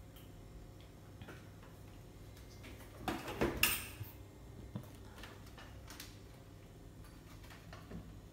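A quick cluster of knocks and scuffles about three seconds in, as a baby monkey scrambles down off a small fridge onto a tiled floor, with faint scattered ticks around it.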